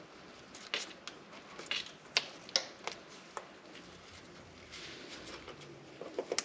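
Irregular light clicks and knocks, about a dozen, scattered and uneven, typical of hand tools and metal parts being picked up and set down during suspension work; a quick cluster of three comes near the end.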